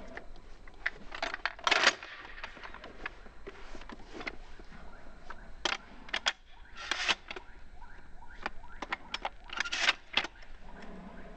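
Shotgun shells being pulled from a side-saddle carrier and pushed into a pump-action shotgun's magazine tube. The sound is a string of sharp clicks and small metallic rattles, with louder clusters about two, five and a half, seven and ten seconds in.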